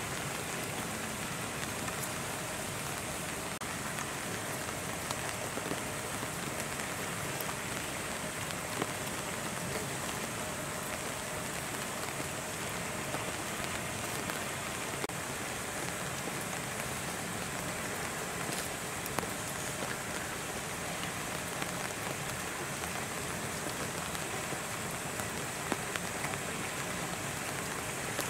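Steady rain falling on hard surfaces, with scattered faint drop ticks.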